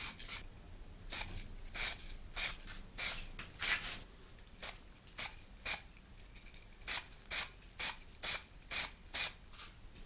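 Aerosol can of chrome spray paint being sprayed in a series of short hissing bursts, about two a second with a brief pause midway, laying the first coat of chrome on a primed shift knob.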